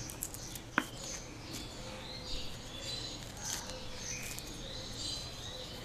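Birds chirping in the background throughout, with a few faint crackles and one sharp click about a second in as the crisp fried crust of a samosa is broken apart by hand.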